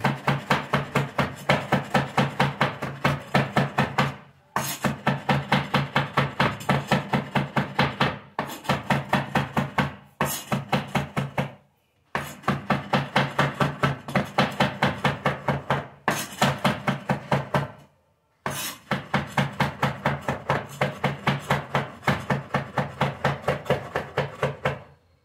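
Large kitchen knife rapidly chopping roasted green chillies and garlic on a wooden board, about five quick strokes a second. The chopping comes in runs of a few seconds broken by short pauses.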